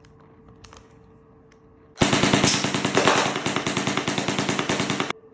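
Gel blaster firing one fully automatic burst of about three seconds: a rapid, even stream of shots that starts about two seconds in and cuts off suddenly. A few faint clicks come before it.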